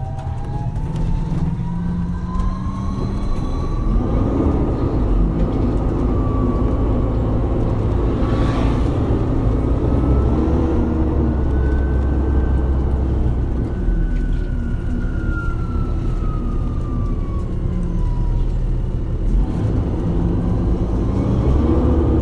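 MAN Lion's City hybrid bus driving: a low engine rumble under a whine from the electric drive that climbs in pitch as the bus picks up speed, peaks about halfway, then sinks as it slows, and starts climbing again near the end. A brief hiss comes about eight seconds in.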